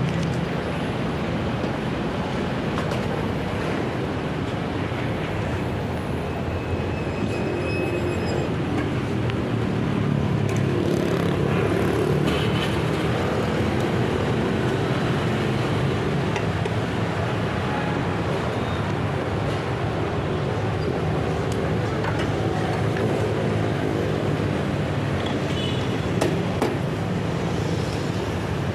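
Steady traffic and vehicle engine noise, with a few faint brief high tones.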